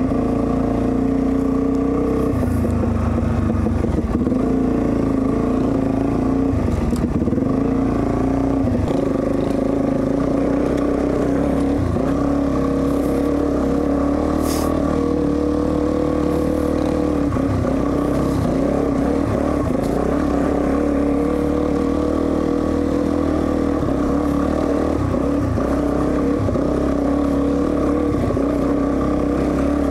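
Motorcycle engine running steadily under way, its pitch shifting a little with the throttle, with a few brief clicks and rattles.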